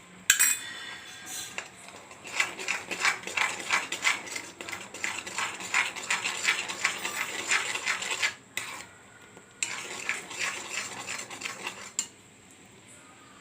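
A spoon stirring and scraping in a kadai, clinking rapidly against the pan, as ginger paste is mixed into boiling sugar syrup. The stirring pauses for about a second midway and stops about twelve seconds in.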